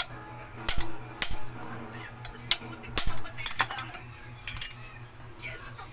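Metal clinks and knocks, about six irregular sharp strikes, over a steady low hum.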